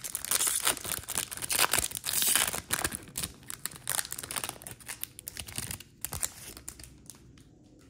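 Foil wrapper of a trading-card pack being torn open and crinkled. The crackling is loudest over the first three seconds and thins out by about seven seconds in.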